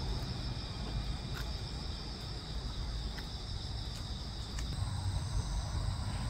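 Crickets chirping in a steady, unbroken chorus, with a low rumble underneath.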